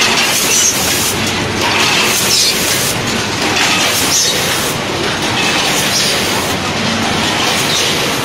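Automatic packaging line running: a multihead weigher feeding vertical form-fill-seal bagging machines, a loud steady mechanical clatter with sharper bursts recurring every second or two as the machines cycle through bags.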